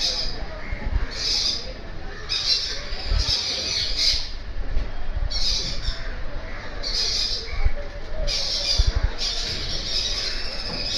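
Pet birds squawking: harsh, screechy calls about once a second, some running together into longer screeches.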